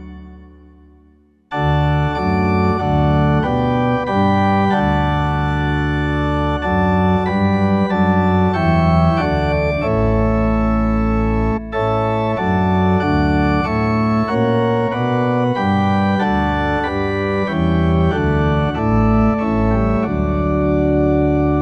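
Organ playing a hymn tune in sustained chords. The last chord of one verse dies away, and after a short pause the next verse starts about a second and a half in.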